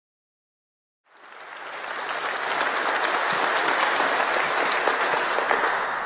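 Audience applauding, starting about a second in, swelling over the next second and then holding steady.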